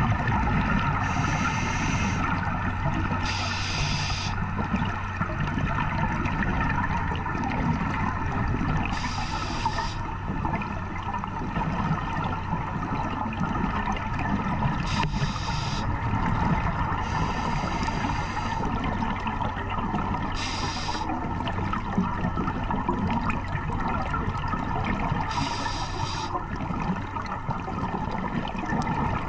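A scuba diver breathing through a regulator underwater: hissing breaths recur every few seconds over a steady, muffled underwater noise.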